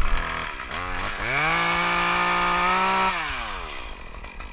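Chainsaw given a couple of quick throttle blips, then revved up to full throttle, held steady for about a second and a half, and released so that it winds back down toward idle.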